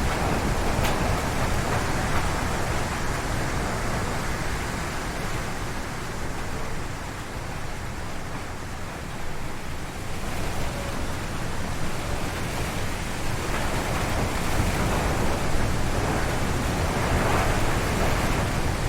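Strong wind gusting through forest trees, a continuous howling rush that eases off in the middle and swells again toward the end.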